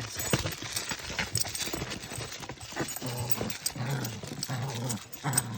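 A dog tearing and rummaging at a wrapped present: crinkling paper with many scattered clicks and scrapes.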